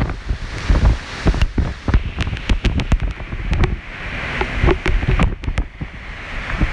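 Hurricane wind buffeting the microphone in hard, uneven gusts, with wind-driven rain and a run of sharp crackles through the middle.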